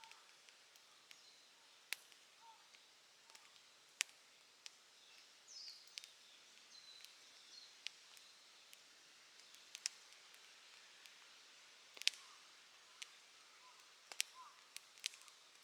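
Campfire crackling with sharp, irregular pops, the loudest snaps about 4 and 12 seconds in. Faint bird chirps in the background.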